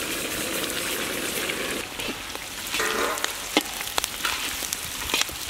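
Green capsicum and onion sizzling in hot oil in a large wok as sesame seeds are poured in. From about two seconds in, a metal spatula stirs and scrapes the pan, with several sharp clicks against the wok.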